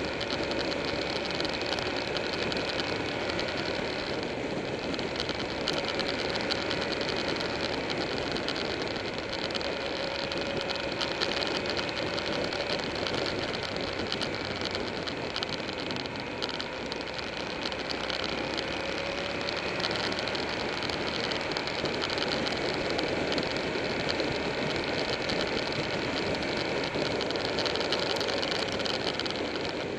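Steady wind rush and engine noise of a motorcycle being ridden at speed, the Buell 1125R's V-twin droning underneath, its pitch drifting slightly up and down through the curves.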